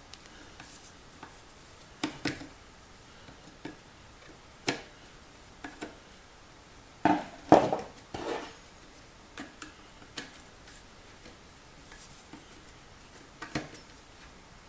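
Scattered clicks, taps and knocks of small parts being handled on a workbench, with the loudest cluster of knocks about seven to eight seconds in.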